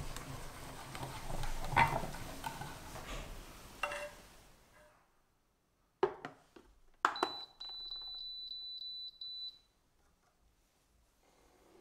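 Wire whisk scraping and stirring in an enamel saucepan for the first few seconds. About six seconds in, the pan knocks down on a glass cooktop. A series of about seven quick high beeps follows from the cooktop's touch controls.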